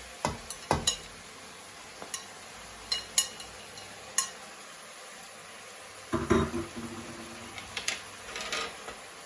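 Cooking utensil knocking and scraping in a frying pan as noodles are added and tossed: a few sharp clinks in the first seconds, then a busier stretch of scraping and clattering from about six seconds in, over a faint sizzle of frying.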